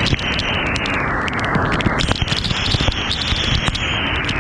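A waterfall rushing close by: a loud, steady wash of water noise with frequent crackles and pops on the microphone.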